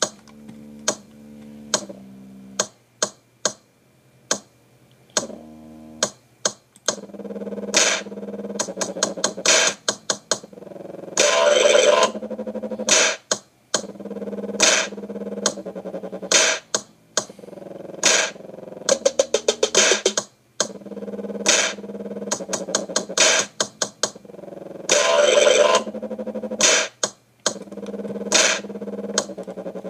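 Electronic music track: drum-machine hits over synthesizer notes, sparse for the first few seconds, then a fuller, denser beat from about seven seconds in.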